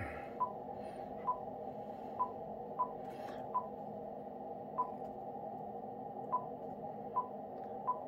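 Icom IC-705 touchscreen key beeps: about nine short beeps of the same pitch at uneven intervals, one for each letter or space typed on the on-screen keyboard, over a faint steady hiss.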